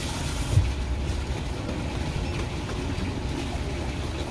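Steady low mechanical rumble, like a motor or engine running, with a single knock about half a second in.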